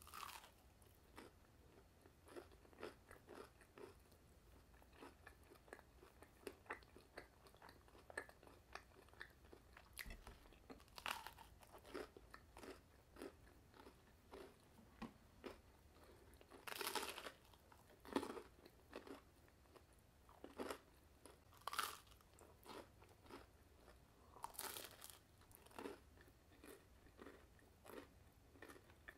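A person biting into and chewing a piece of toasted panini bread: quiet, close-up chewing with a crackle of small crunches, and sharper, louder crunches every few seconds.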